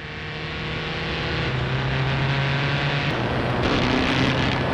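Re-created engine sound of a 1920s land speed record car, a loud dense rumble with a low steady drone, swelling up over the first couple of seconds and then holding.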